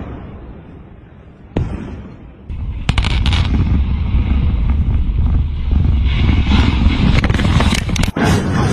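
Explosive demolition: a single sharp bang, then a quick series of cracking detonations followed by a long, heavy rumble of collapsing structure, broken briefly near the end.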